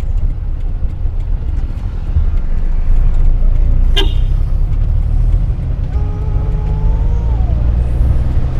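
Engine and road noise of a 1984 Daihatsu Hijet 1000 heard from inside its cab while driving, a steady low drone. A sharp click about halfway through, and near the end a held tone that drops in pitch before it fades.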